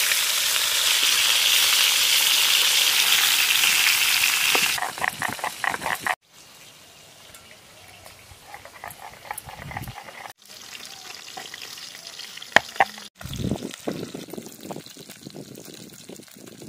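Fish pieces frying in hot mustard oil in a karai: a loud, steady sizzle that stops abruptly about five seconds in, followed by a spatula scraping and turning the pieces. The rest is much quieter, with scattered knocks and one sharp click.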